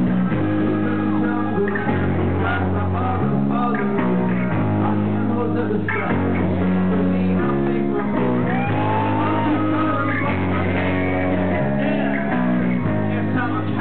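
Live rock band playing: electric guitars and bass on a repeating chord pattern that changes about once a second, with a male lead vocal over it.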